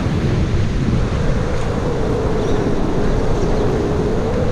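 Wind buffeting the action-camera microphone over waves and surf. A steady hum comes in about a second in and holds on.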